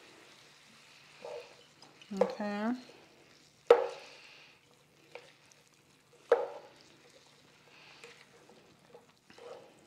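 Vegetables being stirred in a skillet with faint sizzling, broken by two sharp knocks a few seconds apart.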